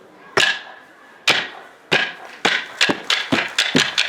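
Kabuki wooden clappers struck in a series that starts about a second apart and quickens steadily into a rapid run of sharp clacks.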